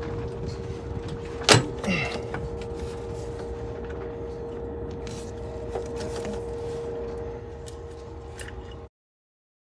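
Hand work on a truck engine's crankcase oil separator: a sharp metal knock about a second and a half in, then a short clatter, over a steady hum with a constant tone. The sound cuts off suddenly near the end.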